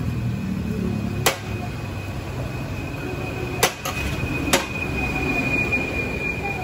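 Metal spatula stirring and scraping fried rice in a large steel wok, with a few sharp clangs of the spatula on the wok, over a steady low rush. A thin, steady high whine comes in about two seconds in and stays.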